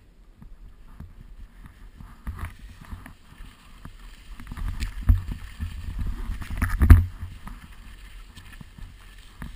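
Skis sliding and scraping over packed snow at speed, over a low rumble. The scraping builds after a quieter start, with the loudest scrape about seven seconds in.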